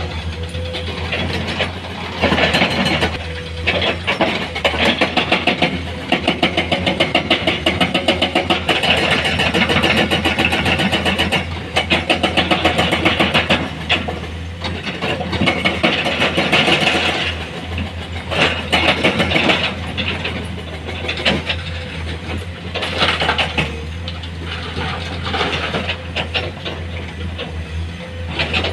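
Heavy diesel engine of construction machinery running with a fast, even knocking beat, its level swelling and easing several times as it works under load.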